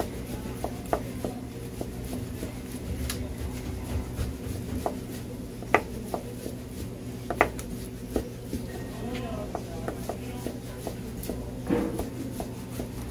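A kitchen knife slicing raw beef on a plastic cutting board: irregular knocks of the blade against the board, a few of them sharper, over a steady low background hum.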